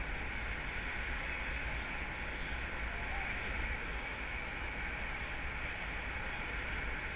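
Steady wind buffeting an action camera's microphone: a low rumble under an even hiss.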